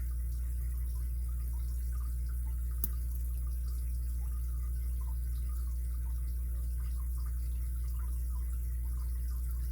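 Faint, scattered ticks and clicks of a lock pick and tension tool working the pin stack of an ABUS 83CS80 padlock, with one sharper click about three seconds in, over a steady low hum.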